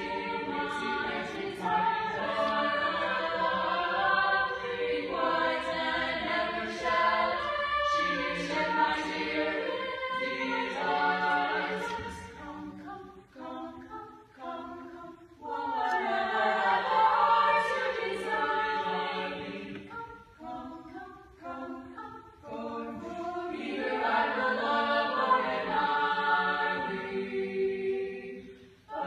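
A small mixed choir singing in harmony, with quieter, broken-up phrases about halfway through and again a little later before the full sound returns.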